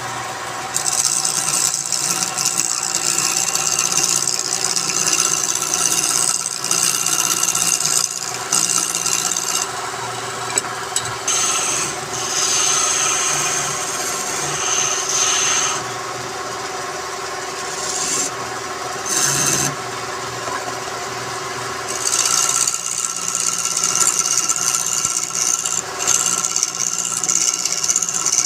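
Wood lathe running with a steady hum while a tool works the spinning wood, the high scraping hiss of the cut coming and going in three long stretches.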